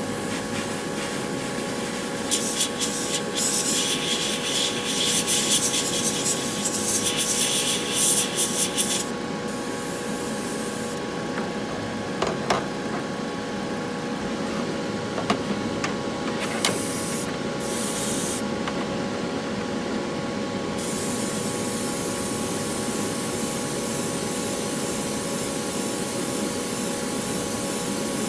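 Spray paint hissing in a series of short spurts for several seconds, over a steady humming fan, followed by a few light clicks.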